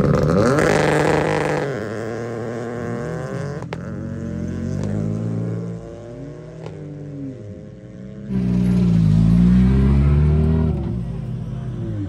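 Rally cars launching hard from the stage start line one after another: a loud burst of revving and acceleration in the first second or two, engine pitch climbing and dropping through the gears. A quieter stretch of engines idling and rolling follows, then a second car launches about eight seconds in with another loud surge.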